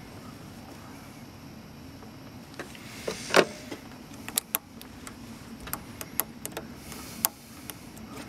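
Hands working plastic quick-splice wire connectors and wiring: a string of sharp clicks and knocks begins about two and a half seconds in, the loudest just after three seconds, over faint steady background noise.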